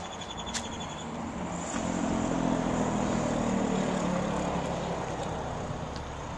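A motor vehicle driving past, its engine and tyre noise swelling about two seconds in and fading away again.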